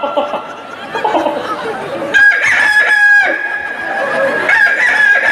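A rooster's cock-a-doodle-doo crow starting about two seconds in, its last note held steady for about three seconds.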